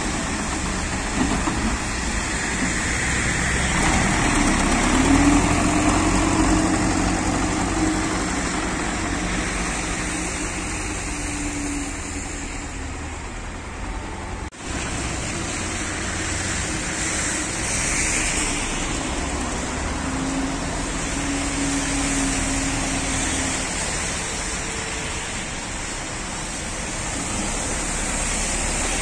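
Tractor engine running while clearing snow, its pitch rising and falling as it revs up and eases off twice. There is a brief break about halfway through.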